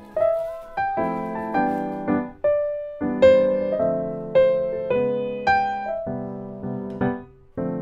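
Background piano music: a gentle melody over chords, each note struck and then dying away, about two notes a second.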